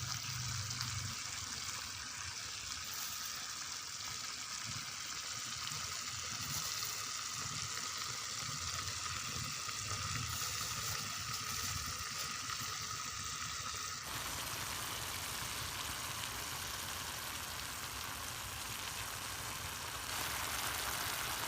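Pot of soup boiling over a camp fire or stove: steady bubbling and sizzling hiss. A faint steady high tone runs underneath, and the sound changes abruptly about two-thirds of the way through.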